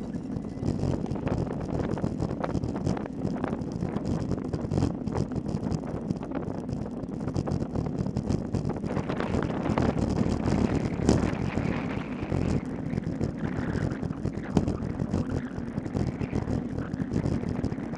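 Wind rushing over the microphone of a camera mounted on a road bike at race speed, with a steady crackle of small knocks from road vibration shaking the mount.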